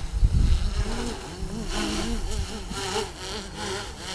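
DJI Inspire 1 quadcopter's motors and propellers buzzing as it manoeuvres in flight, the pitch rising and falling repeatedly as the motors change speed.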